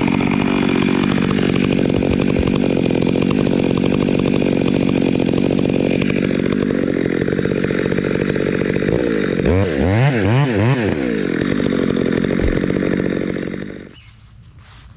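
Two-stroke chainsaw running steadily as it cuts through a log, then revved up and down several times in quick succession about two-thirds of the way through. It cuts off about a second before the end.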